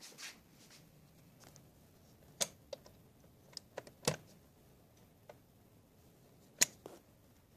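A few separate sharp clicks and knocks, the loudest about four seconds in and near the end: a plug-in receptacle tester being pushed into a wall outlet and handled.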